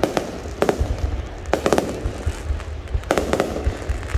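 Aerial fireworks display: shells bursting overhead in quick clusters of sharp bangs, over a steady low rumble.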